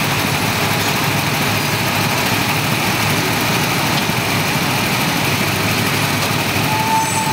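Small go-kart engines running steadily, an even drone without pauses.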